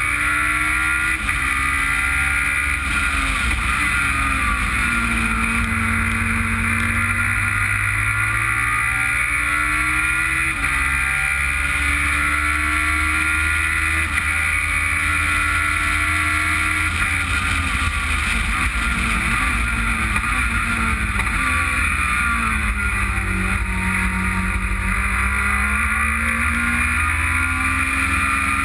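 Onboard sound of an open-cockpit car's engine on a circuit lap, with steady wind rush over the microphone. The revs fall and then climb again twice, about five seconds in and again around twenty-two seconds, as the car slows and accelerates away.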